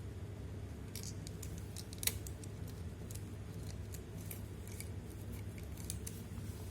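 A scattered series of small, sharp clicks and snips from hand work on a phone during a screen replacement, one louder snap about two seconds in, over a steady low hum.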